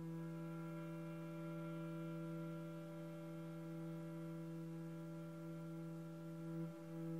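Cello holding one long, steady low note in a contemporary string quartet piece. The note breaks briefly about six and a half seconds in and then carries on.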